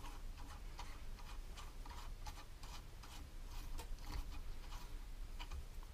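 Faint, irregular small metal ticks and scrapes of a 14 mm spanner working a nut off a terminal of a Land Rover TD5 starter motor's solenoid.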